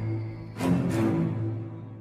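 Background music: sustained low notes with a sharp, heavy beat about half a second in.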